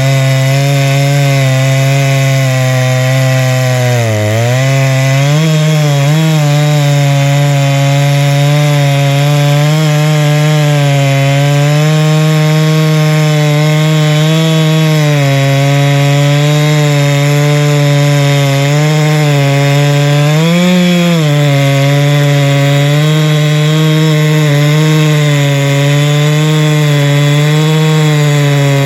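Huztl MS660 clone two-stroke chainsaw running at full throttle, ripping lengthwise through a log in a chainsaw mill. Its pitch sags under load about four seconds in and rises briefly about twenty seconds in, otherwise holding steady.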